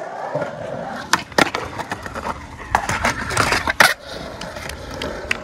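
Skateboard wheels rolling over concrete, broken by several sharp clacks of the board, the loudest near the end.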